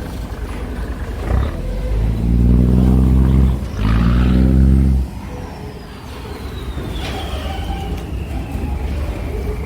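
A low horn blown twice in long blasts, each about a second and a half, over a steady engine rumble.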